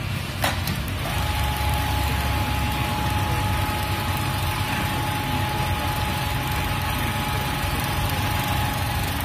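Automatic template sewing machine stitching a seam: a steady high motor whine over a dense mechanical running noise and low hum, starting about a second in after a short click.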